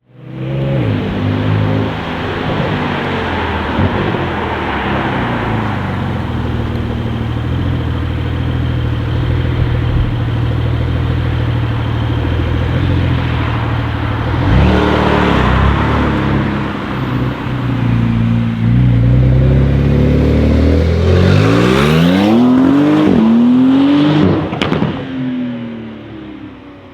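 Porsche 992 Carrera S twin-turbo flat-six on a cold start: it catches right at the start and settles into a steady fast idle. Near the end it is revved a few times, rising and falling in pitch, with a sharp crackle as the revs drop.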